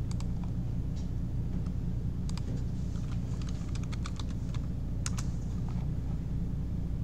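Computer keyboard keystrokes and mouse clicks, scattered taps with a short quick run about three and a half seconds in and the sharpest click about five seconds in, over a steady low hum.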